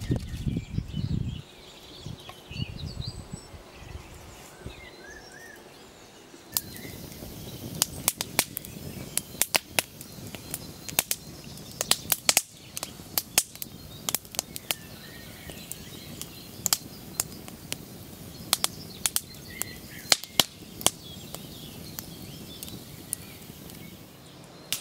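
Wood fire of split kindling crackling: irregular sharp pops and snaps over a low, steady hiss of burning, starting about six seconds in. Before that there is faint rustling and a few soft bird chirps.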